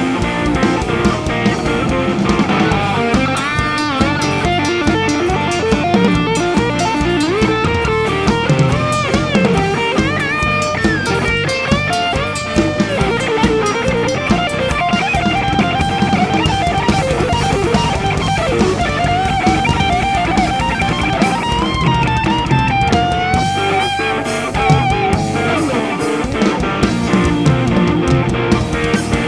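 Live rock band playing: electric guitar carrying a lead melody that slides and bends in pitch over a driving drum kit with crashing cymbals.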